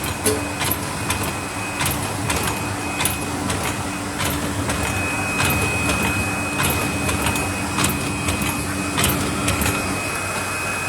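Paper lid forming machine running steadily with repeated sharp clicks about one to two times a second as it cycles, a thin high whine joining about five seconds in. Paper is being fed through it to form its first lids.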